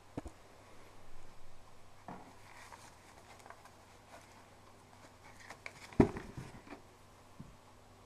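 Close handling noises from leafing through an old, stained paper typewriter manual: short rustles of paper and light clicks and knocks, with one sharper knock about six seconds in.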